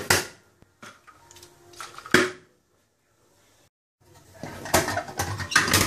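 Sharp knocks and clicks from handling the metal case of a Soviet petrol camping stove (the "Prymus" or "Breżniewka", a copy of the Optimus Hunter): a few single taps in the first couple of seconds, then a quick run of metal clatter near the end as the case is opened.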